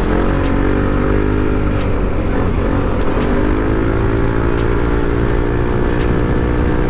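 Yamaha NMAX 155 scooter's single-cylinder engine running steadily while riding, its note dipping briefly about two and a half seconds in and then picking up again, over a steady rush of wind and road noise.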